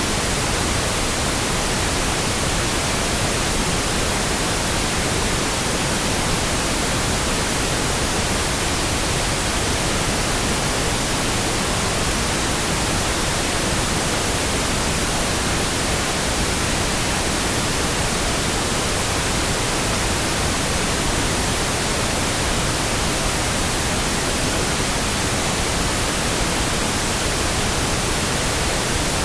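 Pink noise: a steady, even hiss spread across the whole range, unchanging throughout, with no rhythm or breaks.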